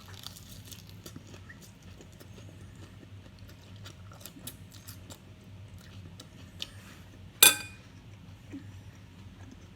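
A person eating chicken nuggets and salad: quiet chewing and many small clicks and ticks. One short, loud sound comes about seven and a half seconds in.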